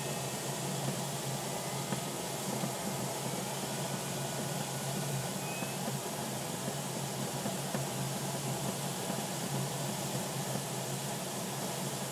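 Steady rush of airflow noise inside the cockpit of a DG-505 two-seat glider in flight.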